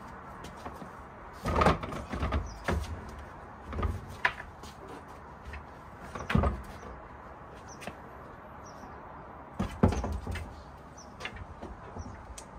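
Large 18 mm plywood panels knocking and scraping as they are stood upright, unfolded on their hinges and a support piece is fitted. Several clusters of wooden thuds come and go, the loudest about a second and a half in and again about ten seconds in.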